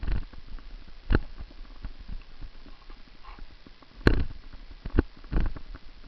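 Bicycle riding over a gravel road: irregular knocks and rattles as the bike and its handlebar-mounted camera jolt over the bumps, over a steady low rumble. The hardest jolts come about a second in, about four seconds in, and twice near the end.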